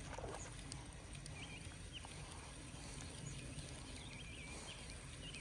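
A small bird chirping faintly in a string of short calls over quiet pond-side ambience with a low, steady rumble.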